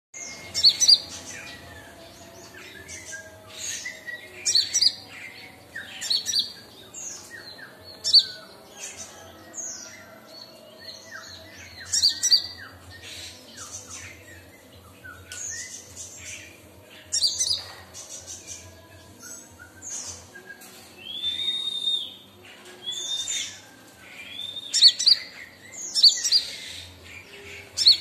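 Kolibri ninja (Van Hasselt's sunbird) singing: sharp, high chirps and twitters repeated every second or two, with a few arched whistled notes about two-thirds of the way through.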